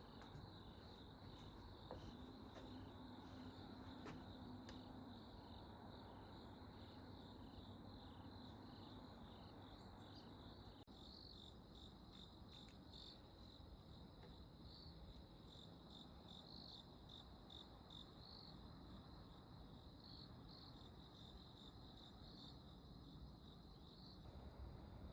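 Faint insects chirping in a repeated high pulsing trill, about two to three pulses a second at first, then more irregular, over a low steady background hiss.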